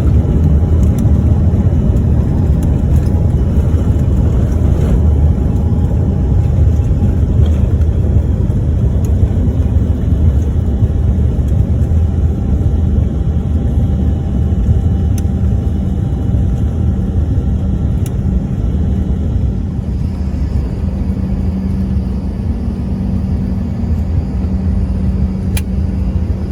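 Steady low rumble of engine and airflow noise inside a small airliner's cabin, just after landing. About twenty seconds in it eases slightly and a steady low hum comes in.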